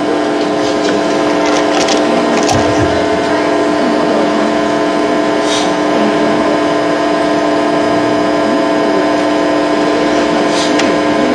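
Steady drone of several held tones over the loudspeakers, unchanging throughout, with a few faint clicks.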